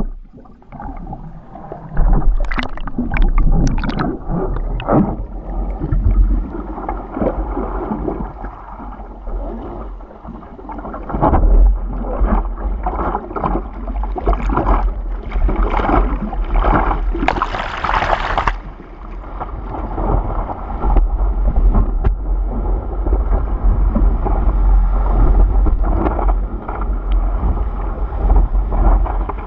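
Sea water splashing and sloshing over a surfboard-nose camera as the board moves through surf, over a heavy low rumble of water and wind buffeting the microphone. A louder hissing rush of whitewater comes a little past halfway.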